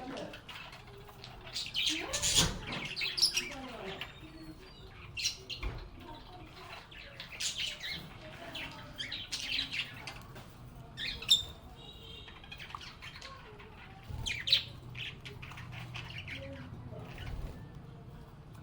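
Lovebirds chirping and squawking in short, irregular calls, with a few louder sharp calls among the chatter.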